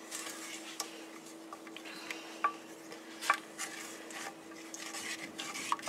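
Wooden spoon stirring a thick melted chocolate mixture in a stainless steel pot: soft scraping and swishing with a few light knocks of the spoon against the pot. A faint steady hum lies underneath.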